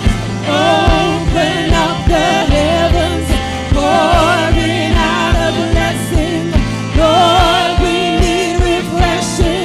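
Live gospel worship music: a woman sings lead with wavering vibrato over a steady drum beat, held bass and keyboard chords, with a second female voice joining.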